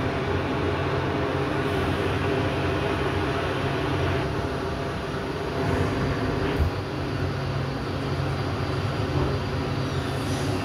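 Otis hydraulic elevator car travelling down: a steady low hum and rumble that goes on without a break.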